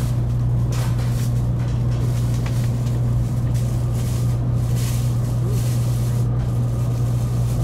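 Inside the cabin of a Taiwan High Speed Rail 700T train moving slowly through a station, a steady low hum of running and cabin noise.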